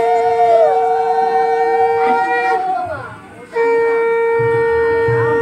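Conch shells (shankha) blown in long, steady notes, a traditional sound at a Hindu blessing rite. One low note breaks off about two and a half seconds in and resumes a second later. A second, higher, wavering note sounds alongside it until about three seconds in.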